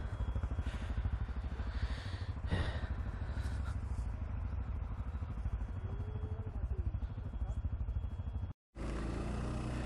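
ATV engine running with a low, pulsing note. The sound cuts out for a moment near the end, then the engine continues with a steadier tone.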